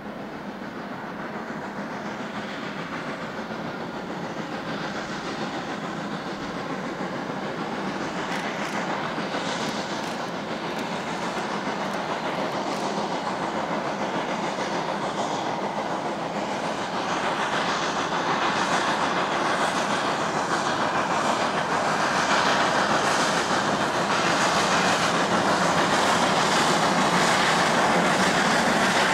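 Ex-German war-class 52 2-10-0 steam locomotive working a train of freight wagons, its exhaust beat and the run of the wagons over the rails growing steadily louder as the train draws nearer.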